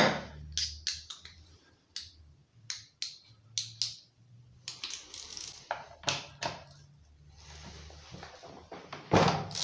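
Irregular metallic clicks and taps of a 13 mm socket and small wrench working on the bar-cover nuts of a Husqvarna 137 chainsaw, with a louder clatter near the end.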